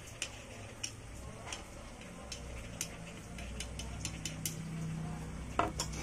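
Light clicks and taps of small tools and wires being handled on a workbench, over a low steady hum, with one sharper knock near the end.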